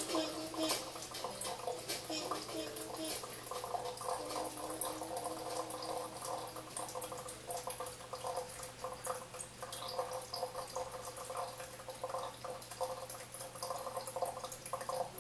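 Water trickling and dripping as a gooseneck kettle pours a thin, steady stream into a Yama Silverton pour-over coffee dripper, with brewed coffee draining through the dripper's valve into the glass server below. Many small drip ticks run over a soft, continuous splashing.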